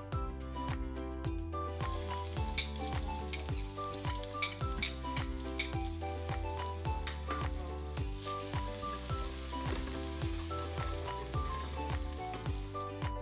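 Chopped garlic sizzling as it hits hot oil in a stainless steel pot, starting about two seconds in and carrying on steadily, stirred with a metal spoon. Background music with a beat plays underneath.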